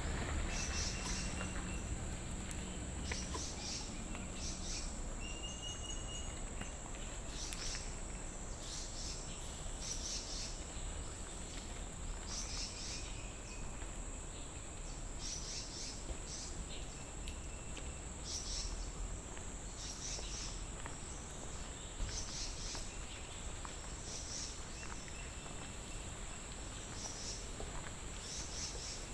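Insects trilling: a steady high-pitched drone with short chirps repeating about once a second. A few brief bird calls and a low background rumble lie underneath.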